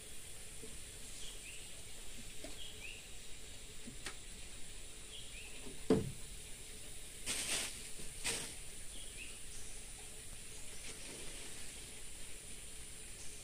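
Tropical pond-side ambience: a steady high insect drone with short falling bird chirps repeating every second or two. About six seconds in there is a single thump, the loudest sound, followed soon after by two short rustling noises.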